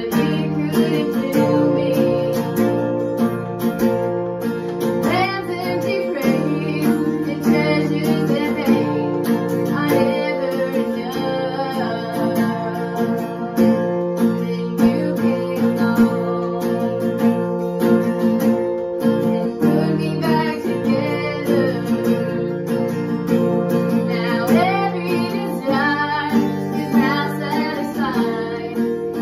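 A girl singing a worship song in phrases over an acoustic guitar strummed in steady chords.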